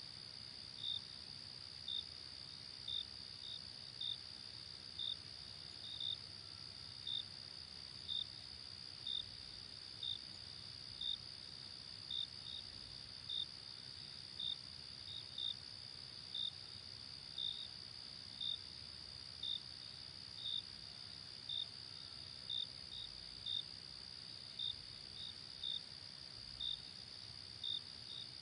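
Night crickets: a steady high-pitched insect trill with a single louder chirp repeating about once a second, now and then doubled.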